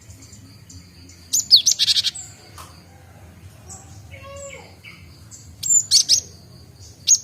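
Cinereous tit (gelatik batu), a young bird still learning its song, calling in two quick bursts of sharp, high chirps, with a third burst starting right at the end. Fainter high whistling notes run underneath.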